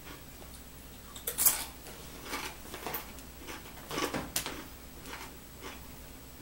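Tortilla chips crunching as they are chewed, mixed with crinkling of plastic chip bags as a hand handles them. It comes as a few separate crackly bursts, the loudest about a second and a half in.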